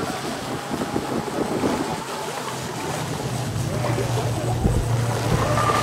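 Pro Boat Miss Geico RC speedboat running fast on a 6-cell LiPo: the electric motor whines over the hiss of its spray. Near the end the whine climbs in pitch.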